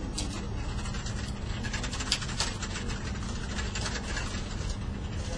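Office room ambience: a steady low hum under scattered small clicks and knocks, the sharpest about two seconds in.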